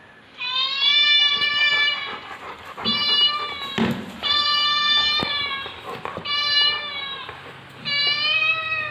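Recorded cat meows played through an Amazon Echo smart speaker: five drawn-out meows in a row, the first and third the longest.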